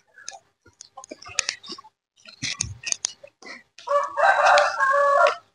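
A rooster crows once, a long call of about a second and a half near the end. Before it come scattered light knocks and scuffs of footsteps on bamboo poles.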